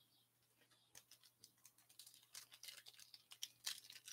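Crinkling and crackling of a foil trading-card pack being handled and torn open: faint, rapid crackles begin about a second in and grow louder near the end.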